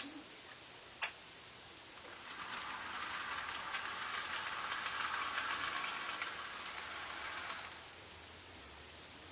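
Two sharp switching clicks about a second apart from the layout's electrical controls, then an N gauge model train running on the track for about six seconds: a light rattling whir with fine clicks of the wheels, building up and then dying away.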